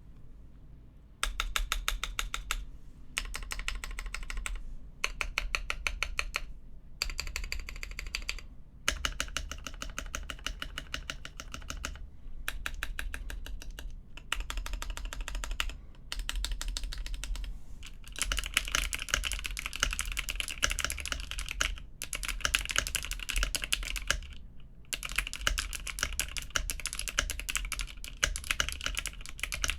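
Typing on a CustomMK EVO70 mechanical keyboard with Cherry MX Hyperglide linear switches, FR4 case, aluminium plate, PBT keycaps and no foam; the switches are not yet broken in, and their scratch can be heard. Runs of keystrokes separated by short pauses begin about a second in and come more densely in the second half.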